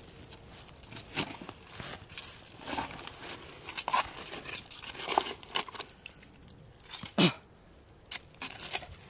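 Small short-handled shovel digging into soft soil and dry leaf litter: a series of irregular scraping, crunching strokes a second or so apart.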